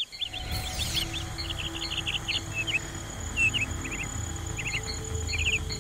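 Small birds chirping in quick short calls throughout, over a low, steady music bed, with a brief whoosh about half a second in.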